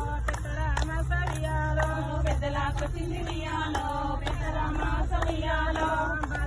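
Bathukamma folk song: several voices singing a chant-like melody over a steady beat of claps, about two a second.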